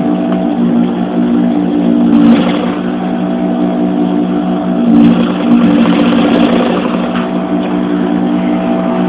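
Sewing machine running and stitching through curtain fabric: a steady motor hum, louder about two seconds in and again around five to six seconds in.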